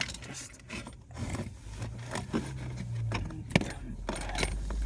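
Irregular clicks and scrapes of a wiring cable being fed and tucked under plastic car interior trim, with one sharp click about three and a half seconds in.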